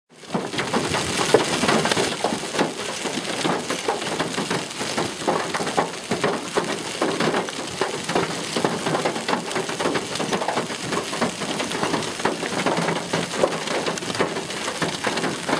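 Hailstones clattering down in a dense, unbroken barrage of hard impacts, starting abruptly.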